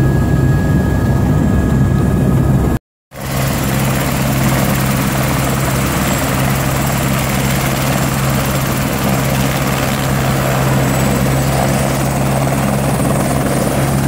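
Turbine helicopter running on the pad with its main rotor turning: a steady low rotor thrum under a thin high turbine whine. At first it is heard from inside the cabin; after a brief cut to silence it is heard from outside, and near the end the helicopter lifts off into a hover.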